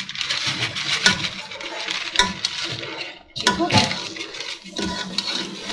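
Sugar poured from a bag into a pot of thick, hot milk and stirred in with a steel spoon that scrapes the aluminium pot. A few sharp, ringing clinks of the spoon against the metal stand out.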